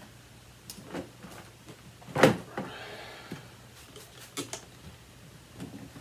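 A cloth wiping over the plastic housing of a Bernina 6100 upright vacuum cleaner, with scattered light knocks as it is handled. There is one sharper knock about two seconds in, followed by about a second of rubbing.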